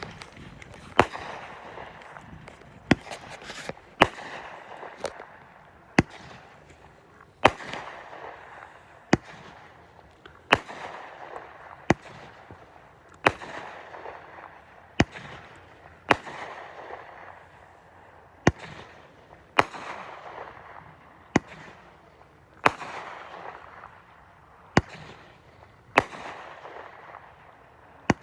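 Consumer fireworks going off in a steady string: about twenty sharp bangs, roughly one every second and a half, each trailed by a brief crackling tail.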